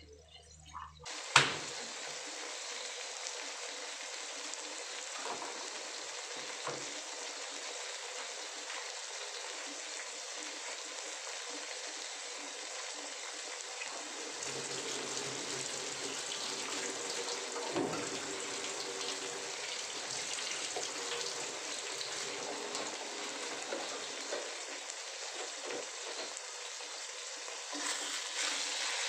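Red chillies, garlic and shallots sizzling steadily in oil in a stainless steel wok, with a sharp clank of a metal ladle against the wok about a second in.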